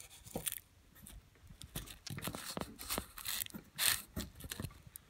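Clear plastic tubing, wrapped in a scrap of plastic bag as thread seal, being twisted by hand into a threaded black iron pipe fitting: irregular crinkling, creaking and scraping of plastic on the threads, loudest about four seconds in. The fitting's threads are being forced to cut into the soft tubing.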